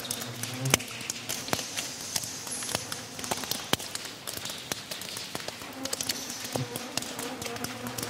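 Water dripping close by from a cave roof: irregular sharp drips falling singly. Behind them there is a low buzzing of insects.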